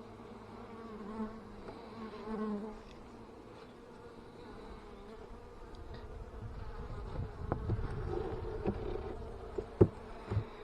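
Italian honey bees buzzing around an opened hive, a steady, wavering hum. In the last few seconds there is some low rumbling and a few sharp clicks.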